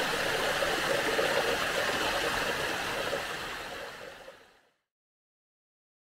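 Steady rush of flowing water, even and hissy, fading out over the last second or so before it stops about four and a half seconds in.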